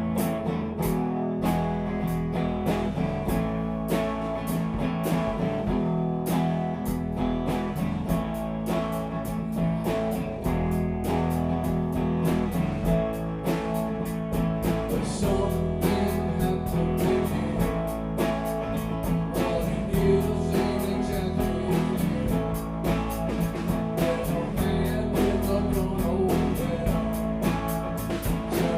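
Guitar-led music with a steady, even beat.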